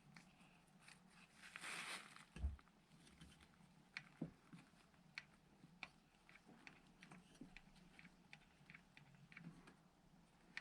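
Near silence broken by faint scattered clicks and small handling noises, with a short rustle about one and a half seconds in and a soft knock just after it.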